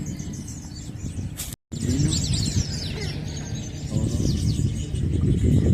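Wild birds chirping and singing, many short high calls and sliding whistles overlapping, over a low rumbling noise. The sound cuts out completely for a moment about one and a half seconds in.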